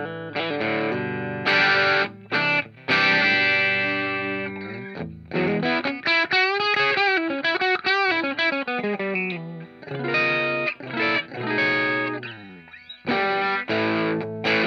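PRS S2 Vela electric guitar on its bridge pickup, played through a Hotone Britwind pedal amp into a guitar cabinet and recorded with an ART AR5 ribbon microphone. Ringing chords, then in the middle a run of bent notes with wide vibrato that slide down, before chords return near the end.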